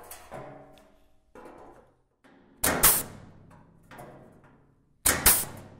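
A hole-punch tool snapping through the sheet-steel flange of a car floor-pan panel twice, about two and a half seconds apart, each punch a sharp crack followed by a brief metallic ring from the panel. Fainter clicks and handling knocks come in between.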